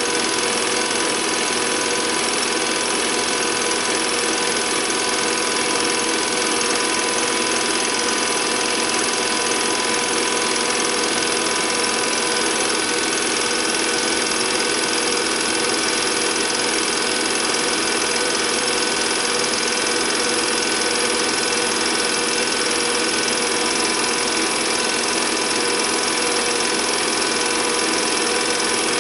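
Home-movie film projector running steadily, its motor and film mechanism giving an even, unchanging mechanical hum.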